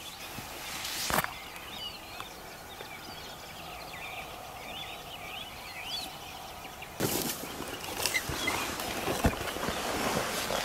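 Small birds chirping and twittering in quick short notes over a faint outdoor hiss, with a single click about a second in. From about seven seconds in, rustling and a few sharp knocks of clothing and gear being handled.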